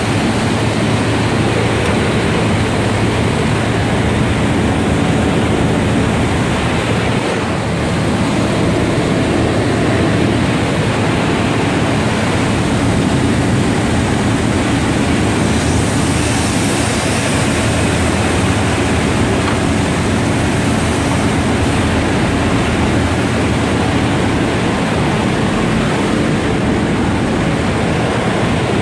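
Belt press machinery running: a loud, steady mechanical noise with a low hum underneath and no distinct knocks or strokes.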